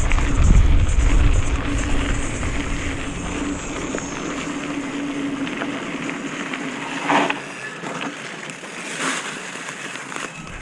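Wind buffeting the microphone, with a steady hum that stops about seven seconds in. There are short sudden noises about seven and nine seconds in.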